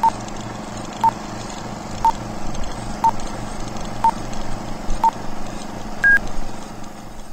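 Film-leader countdown sound effect: a short beep once a second, six times, then a final higher beep. Under the beeps is a steady rattling hum and hiss.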